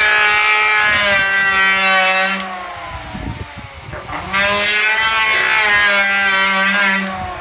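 Electric wood planer cutting a tabletop in two passes of about three seconds each: a loud, steady high-pitched machine whine. Between the passes the motor keeps running more quietly.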